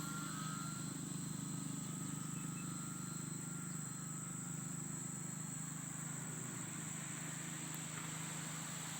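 Steady high-pitched insect chirring, crickets or similar, over an even low hum that does not change.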